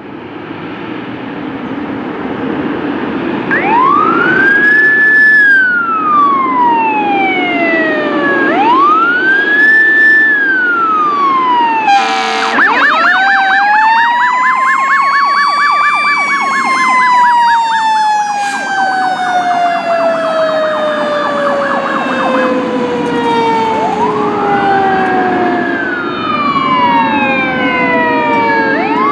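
Fire engine siren sounding on an emergency run, over a low steady blare that swells in over the first few seconds. The siren wails in repeated cycles, each a quick rise and a slower fall. About twelve seconds in it switches to a rapid pulsing yelp over a long, slowly falling tone, then returns to wailing near the end.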